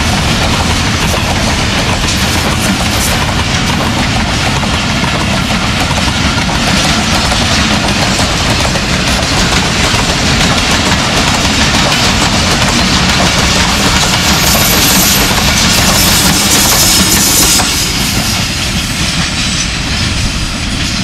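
Passenger express coaches running through the station without stopping: loud steady wheel-on-rail clatter that eases near the end as the train draws away.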